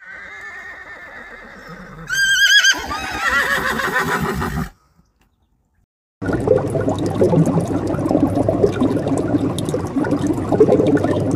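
Zebra calling: about two seconds in, a high whinny that wavers up and down, followed by more wavering calls. Then comes a cut to silence, and after it a steady noisy sound full of small clicks.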